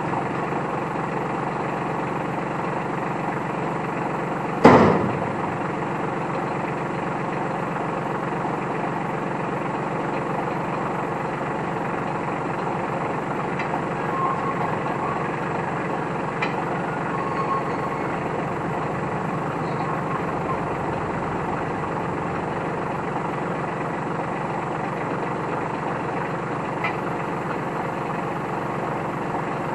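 New Holland T1510 compact tractor's diesel engine running steadily, with one loud bang about five seconds in.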